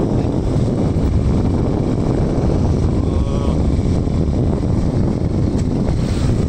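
Steady wind rumble on the microphone of a moving motorcycle, with the motorcycle's engine running underneath.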